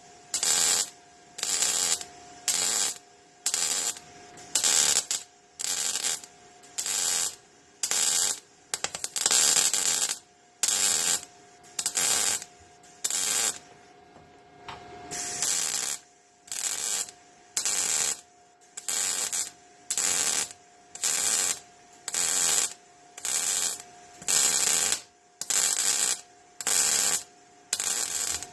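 MIG welder stitch-welding car body sheet metal: short bursts of arc crackle, each about half a second, coming roughly once a second, with a brief pause about halfway through. A faint steady hum runs underneath.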